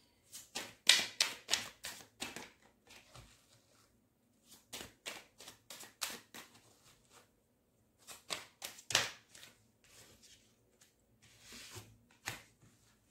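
A deck of angel oracle cards being shuffled by hand: rapid card flicks and slaps in four short runs with brief pauses between.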